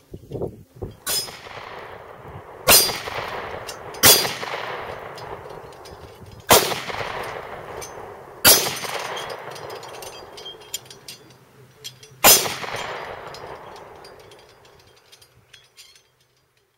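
Hi-Point 9mm pistol shots hitting hanging steel spinner targets, each shot followed by the steel plate ringing out. There are six shots at uneven intervals, the first softer than the rest. The last comes about twelve seconds in, and its ringing fades away over the next few seconds.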